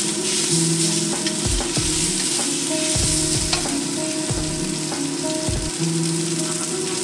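Food sizzling in a hot steel wok over a gas flame, with a wooden spatula stirring and scraping it in several short strokes.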